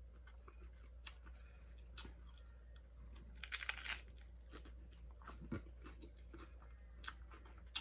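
A crisp hard taco shell crunches loudly as it is bitten into, about three and a half seconds in, with quieter chewing and small crunches before and after.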